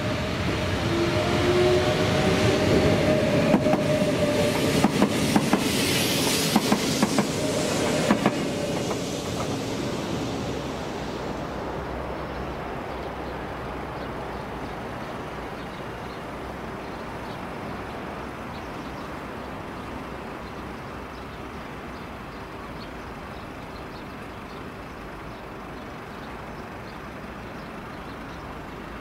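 A Renfe train passing close by, with a whine in the first few seconds and a quick run of wheel clacks over rail joints from about three to eight seconds in; the sound then fades away as the train recedes.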